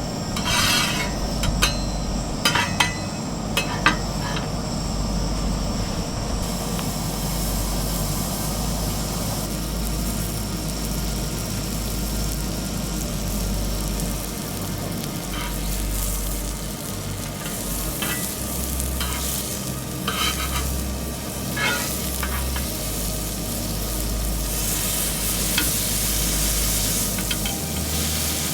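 Food sizzling as it fries in a pan, with short runs of clinks and scrapes from a utensil stirring it.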